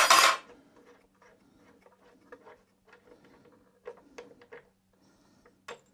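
Metal fuel-line fittings and small tools being handled on an oil burner: one loud metallic clank right at the start, then scattered light clicks and taps, over a faint steady hum.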